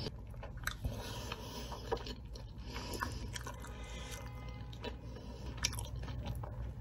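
Slow, close-up chewing of a mouthful of triangle kimbap (rice ball), with soft scattered mouth clicks.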